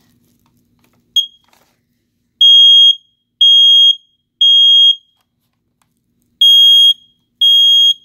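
Smoke alarm sounding: a short chirp, then loud, high-pitched beeps about half a second long, three in a row, a pause, then two more. This is the temporal-three evacuation pattern.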